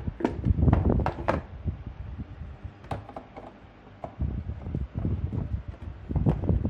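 Plastic electric kettle being handled, with a quick run of sharp knocks and clicks, a single click near the middle, and duller thuds later on, as the kettle is set onto its power base.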